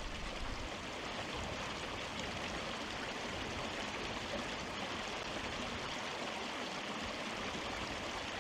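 Small rocky moorland stream running steadily over stones, with an even rushing sound throughout.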